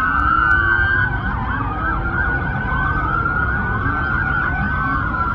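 Many police sirens wailing at once, their rising and falling pitches overlapping over a steady low rumble.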